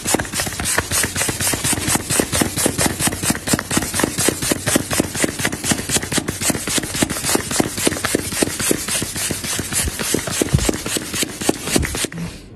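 A rapid, even clatter of sharp knocks or clicks, several a second, stopping abruptly near the end.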